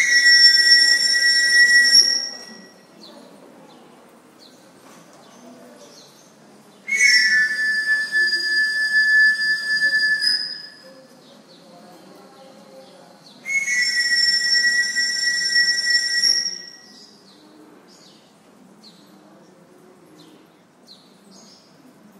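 A whistle sounding three long, steady blasts of about three seconds each, every blast two close-pitched notes held together. The first is already sounding and ends about two seconds in; the others come roughly five seconds apart. Birds chirp faintly in the gaps.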